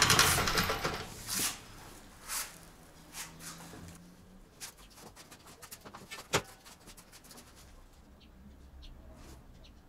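Scattered metal clicks and knocks from the handle of a hydraulic motorcycle lift being fitted and worked, the sharpest knock about six seconds in. A rushing noise fades out over the first second.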